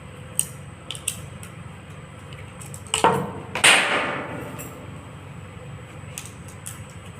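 Metal hand tools clinking and knocking against a milling tool's metal parts while its screws are tightened: a few light clicks, then two louder metallic knocks about three seconds in, the second ringing briefly.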